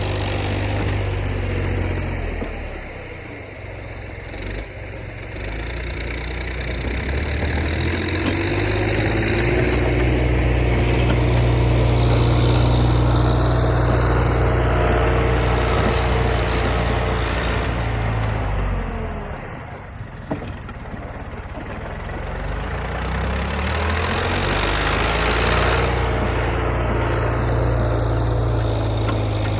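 John Deere backhoe's diesel engine running; its speed drops twice and climbs back up each time.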